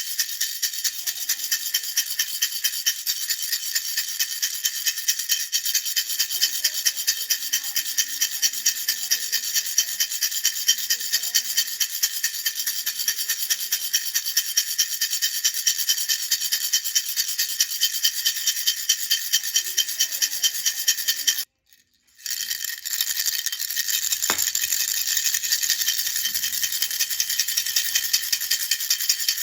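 Baby rattle shaken in a fast, even rhythm, its beads making a bright, hissy rattle with every shake. The shaking breaks off for about a second near the two-thirds mark, then carries on as before.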